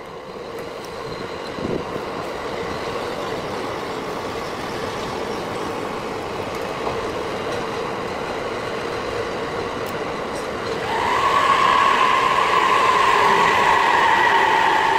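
E657 series electric train rolling slowly past on the rails with a steady running rumble. About eleven seconds in, a loud high whine comes in and slides slowly down in pitch. The track is sped up one and a half times.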